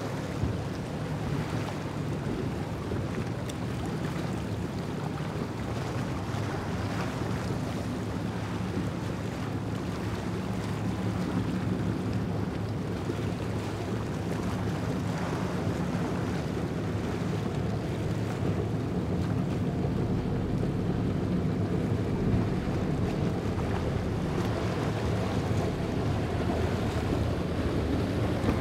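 Powerboat's engines running at speed, a steady low drone that grows slowly louder, over the rush of spray and waves with wind on the microphone.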